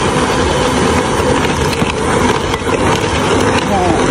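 Electric hand mixer running steadily, its beaters churning through thick egg-yolk cake batter.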